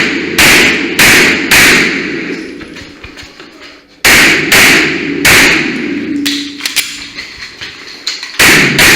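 Pistol gunfire: about eight loud shots in three quick strings of two or three, with fainter shots between them.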